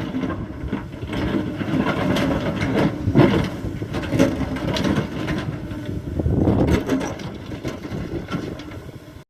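Kobelco SK75 excavator's diesel engine running steadily under load while the bucket scrapes and knocks through soil and rock fill. The sound grows fainter near the end.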